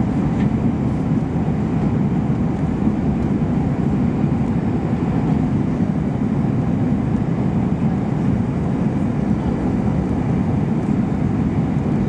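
Steady low rumble of cabin noise inside an Airbus A321-231 airliner, from its IAE V2500 jet engines and the air around the fuselage.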